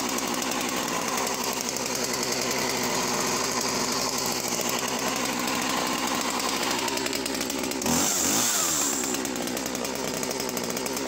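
Husqvarna 41 two-stroke chainsaw idling evenly, freshly started from stone cold. About eight seconds in it is blipped once to a brief high rev and drops straight back to idle.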